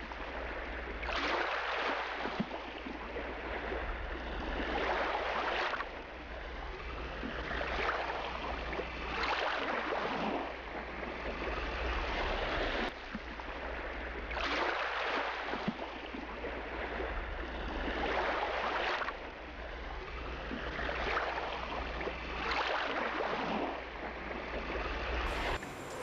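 Sea waves washing in and drawing back, the noise swelling and ebbing every couple of seconds over a steady low hum.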